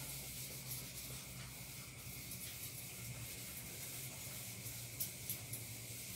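Whiteboard eraser rubbing across a whiteboard in faint wiping strokes, a few slightly louder about five seconds in, over a steady low hum and hiss.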